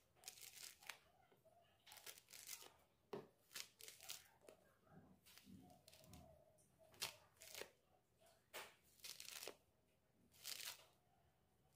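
Orange peel being torn off by hand: faint, irregular short tearing rasps as strips of peel pull away from the fruit.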